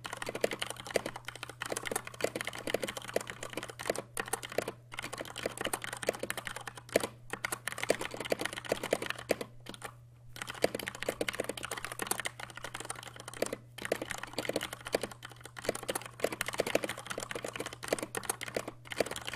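Typing on a Poker II 60% mechanical keyboard with Cherry MX Brown switches: a rapid, continuous run of key clacks, broken by brief pauses every few seconds, over a steady low hum.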